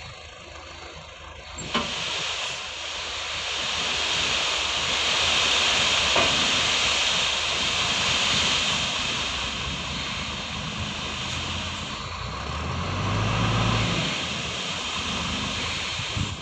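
Isuzu dump truck tipping its load of sand from the raised bed: a steady rushing hiss of material sliding out. Under it the truck's diesel engine runs, rising in a rev about three-quarters of the way through.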